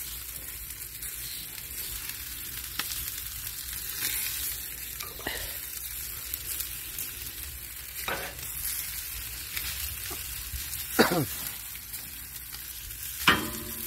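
Chicken thighs sizzling on the hot grate of a charcoal grill: a steady hiss, broken by a few short, sharp sounds, the loudest about eleven seconds in and near the end.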